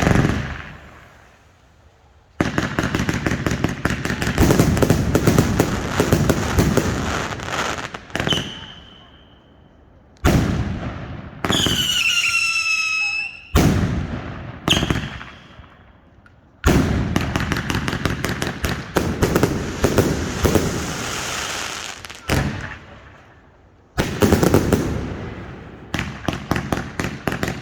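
Fireworks going off: a sharp bang, then long volleys of rapid cracking reports broken by pauses. Two whistles sound about halfway through, the second falling in pitch. Single bangs come near the end.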